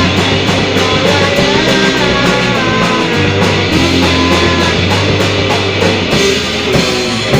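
Rock band music: electric guitar playing a melodic line with bent, gliding notes over bass and a steady beat, ending just as the video ends.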